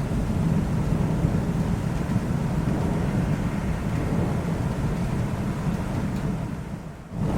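Low, rolling rumble of thunder under steady rain, fading away about six and a half seconds in.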